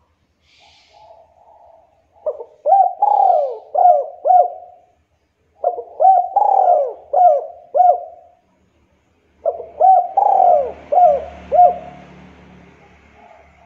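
Spotted dove (Javanese derkuku) cooing: three loud phrases of four or five arched coos each, with short gaps between, after a soft opening note. A low rumble and hiss run under the third phrase.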